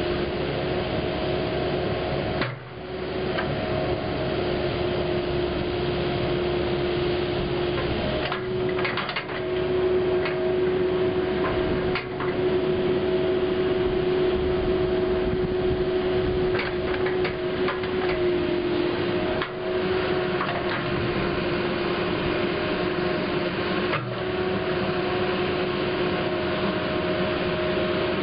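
Caterpillar 308E2 CR mini excavator running, its diesel engine and hydraulics giving a steady hum with a held tone while the upper structure swings round. A few short knocks are heard along the way.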